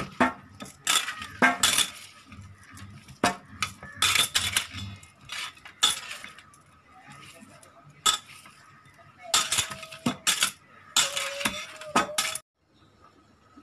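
Bangles jingling and clinking against each other and against a steel plate as a hand kneads crumbly paneer on it, in irregular bursts of clinks and taps. The sound stops suddenly near the end.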